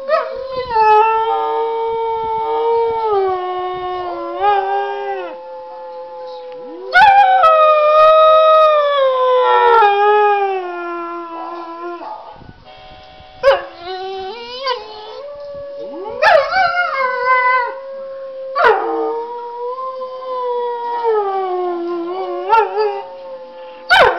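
A dog howling in several long, drawn-out howls, each sliding down in pitch, with short breaks between them. A steady faint tone sits underneath.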